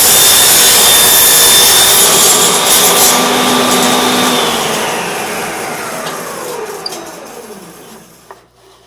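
Table saw cutting through a piece of wood for about three seconds. The saw is then switched off and the blade winds down, its whine falling in pitch and fading over several seconds.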